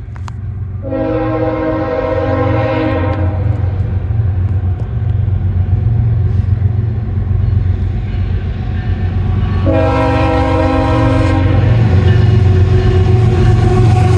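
CSX freight diesel locomotive approaching, its air horn sounding two long blasts of several notes at once, the first about a second in and the second near ten seconds. Under the horn a steady low diesel rumble grows louder as the locomotive draws alongside.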